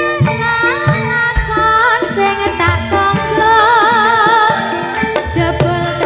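Live Javanese jaranan sentherewe music: drum strokes under a melody, with a long wavering held note in the middle.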